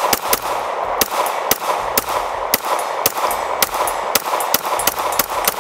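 A Glock 19 9mm pistol fitted with a stabilizer brace fired in a rapid semi-automatic string, about three shots a second.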